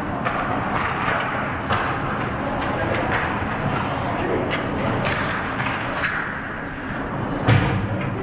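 Ice hockey play near the net: skates scraping the ice, and sticks and puck clacking in sharp strokes over a steady rink din. A loud thud comes about seven and a half seconds in.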